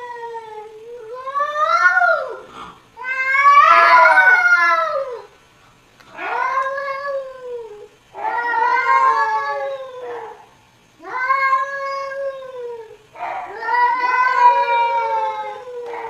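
Cat meowing in a string of long, drawn-out yowling calls, about seven in a row, each lasting one to two seconds with short pauses between.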